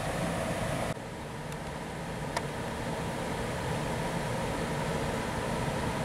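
Freight train at a station: tank wagons rolling by, then about a second in an abrupt cut to a steady low rumble with a single faint click.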